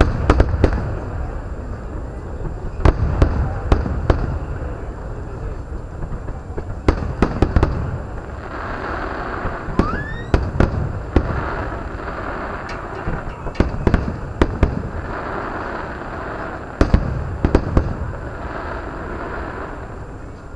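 Fireworks show: aerial shells bursting in single sharp bangs and quick clusters, with one rising whistle about ten seconds in, picked up by a car dashcam's microphone.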